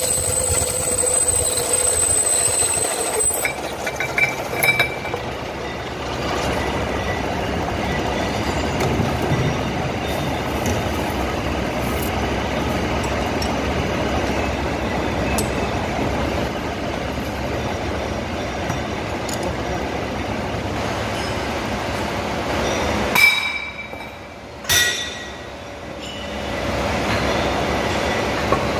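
Engine lathe cutting into a spinning 25 mm steel plate: steady machining noise with metal chips clinking. About 23 seconds in the noise briefly drops away, with two sharp metallic knocks, then the machining runs on.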